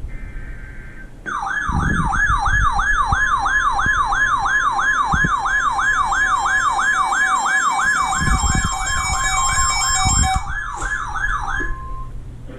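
Electronic weather-alert siren sounding for a severe thunderstorm warning: a warbling tone that sweeps rapidly upward about three times a second, with a steady single tone joining in later, then cuts off near the end. Just before the siren starts, a brief buzzy burst of alert header data plays.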